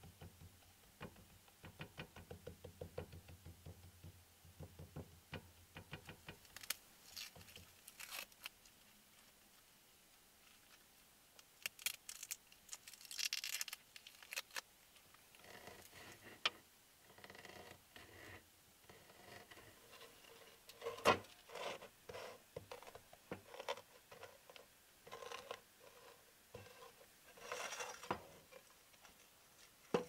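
Small cooking sounds: a wooden spatula tapping and pressing a tapioca crepe in a frying pan on a portable gas stove, with quick light ticks, then a knife cutting on a wooden board among scattered knocks and scrapes of utensils.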